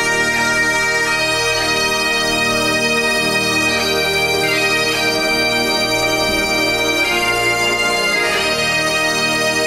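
Bagpipes playing a slow melody over their steady drones.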